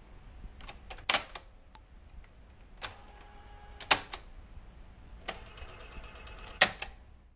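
Piano-key cassette transport buttons on a Sony CFS-W600 boombox being pressed and released, giving four sharp clacks with lighter clicks between. Near the end the cassette mechanism runs with a fast rattling tick for about a second and a half.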